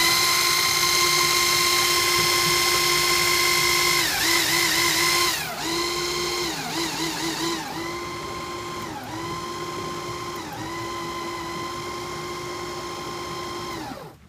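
Sinclair C5's electric drive motor running with a steady high whine. Its pitch dips briefly several times as the brakes are tried. It runs louder for the first five seconds or so, then quieter, and cuts off near the end.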